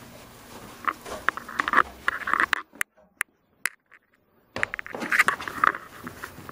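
Knocks, clicks and scraping as a fiberglass bathtub is handled and carried through a doorway, with a break of near-silence in the middle.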